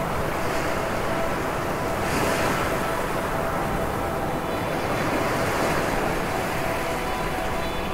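Ocean surf: a steady rush of breaking waves, with a brighter wash about two seconds in. A faint held tone sounds underneath.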